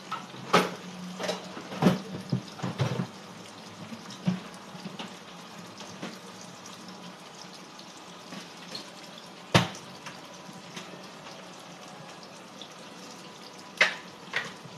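Washing up at a kitchen sink: water running from the tap while dishes and utensils knock and clatter against the sink and each other. There is a cluster of knocks in the first few seconds, then single sharp knocks about ten seconds in and again near the end, over a low steady hum.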